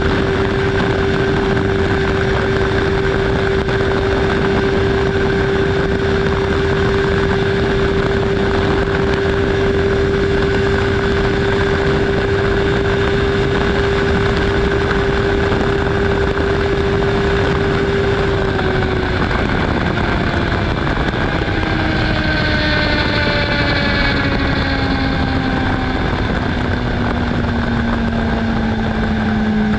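Honda CBR650R inline-four with its stock exhaust holding a steady high-revving note at motorway speed, under heavy wind rush. About two-thirds of the way in, the revs begin to fall smoothly and keep dropping.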